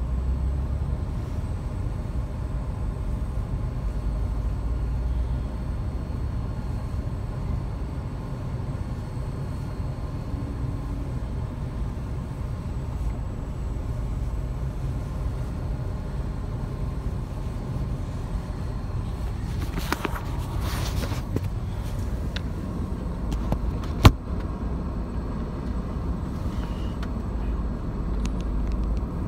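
Low steady rumble of idling truck and car engines, heard from inside a car. There is a short hiss about two-thirds of the way through and a single sharp click later on.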